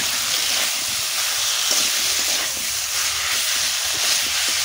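Raw jackfruit chunks frying in hot oil and spice paste in a metal kadai, a steady loud sizzle that grows louder at the very start, while a metal spatula stirs and scrapes them around the pan. This is the bhuna stage, the jackfruit being fried down in the masala.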